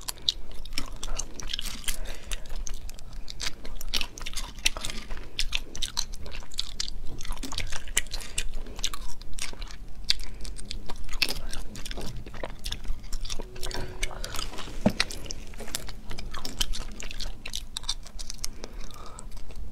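Close-miked eating of spicy sea snails: wet sucking and lip-smacking as the meat is drawn from the shells, with chewing, heard as a steady run of short, sharp clicks.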